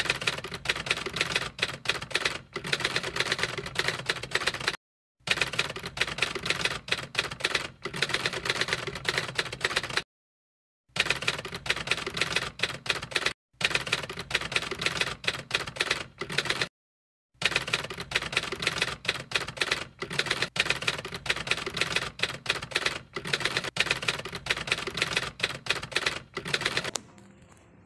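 Typewriter typing sound effect: rapid key clacks in long runs, broken by four short silences and stopping near the end.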